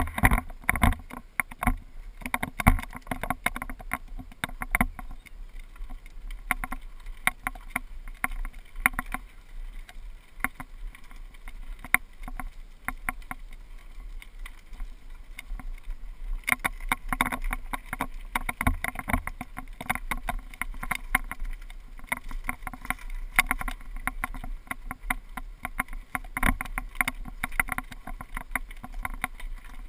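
GoPro HD camera mount rattling without let-up as a mountain bike rolls down a gravel track, over tyre crunch and a low rumble. The rattling grows denser about halfway through, where the track turns to loose gravel.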